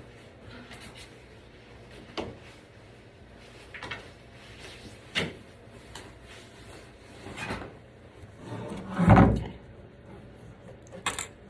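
Scattered knocks and clunks of the cart frame parts being handled while the shock cord is reworked, with the loudest, heaviest thump about nine seconds in.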